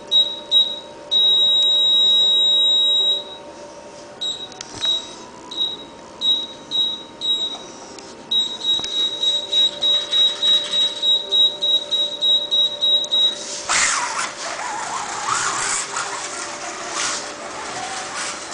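Electronic beeping at one high pitch from the slot-car track's race electronics: a long tone, a string of short beeps, then a fast run of beeps for about five seconds while the car waits at the start. About fourteen seconds in, the beeping stops and a rough whirring with clicks takes over as the slot car sets off along the track.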